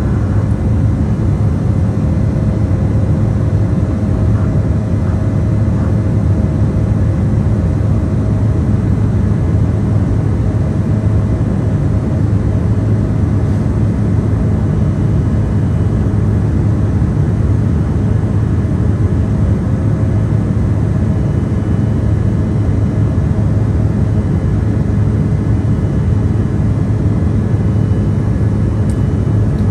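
Steady cabin noise inside an Embraer E170 airliner in flight: the low rush of airflow and hum of its twin GE CF34 turbofan engines, unchanging throughout, with a faint steady tone in it that fades out about twelve seconds in.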